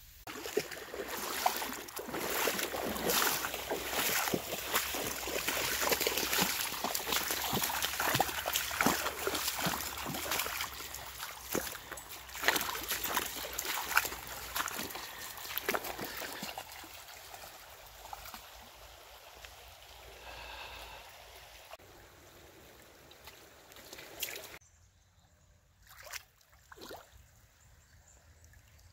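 Water splashing and trickling, with dense, irregular splashes for about the first sixteen seconds that then thin out and fade. The sound drops away suddenly near the end, leaving only a few scattered splashes.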